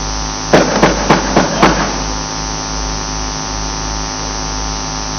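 Steady electrical mains hum on the microphone line, with a quick run of about five sharp knocks or taps in the space of about a second, near the start.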